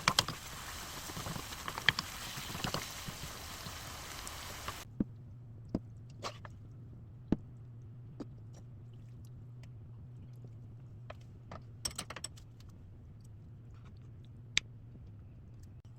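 Scattered light clicks and knocks of kitchen utensils and dishes during food preparation, over a steady low hum. The first few seconds are a busier, noisier stretch of clatter that stops abruptly about five seconds in.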